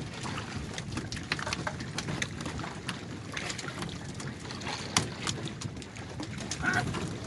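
Water slapping and splashing against the hull of a small fishing boat, with many short, sharp knocks and splashes as fishermen work hand lines and land fish.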